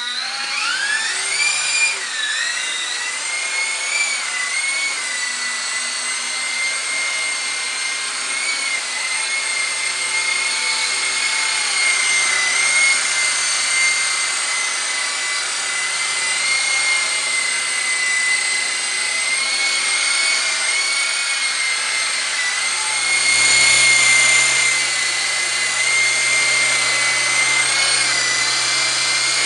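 Black Shark 9006 toy RC helicopter's electric motors and rotor blades whirring: a high whine that rises as it spools up at the start, then holds steady with small wobbles in pitch, growing louder about three quarters of the way through.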